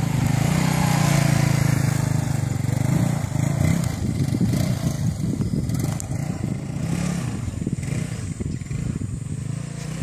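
Small step-through motor scooter's engine running as it rides off. Its steady note grows weaker and rougher through the middle and picks up again near the end as the scooter comes back.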